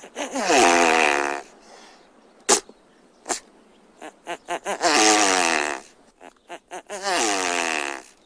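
Swan calling: three harsh honks, each about a second long and falling slightly in pitch, with short clicks between them.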